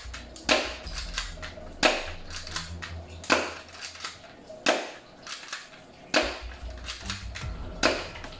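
Full-alloy Glock 17-style spring airsoft pistol firing 6 mm BBs: six sharp shots about a second and a half apart, the slide racked by hand between each shot.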